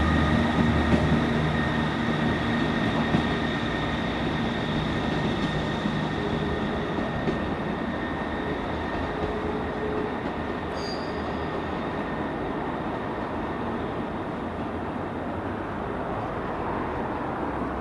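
ScotRail Class 158 diesel multiple unit pulling away over curved track. Its underfloor diesel engines rumble, and a steady high wheel squeal from the curve fades as the train draws away.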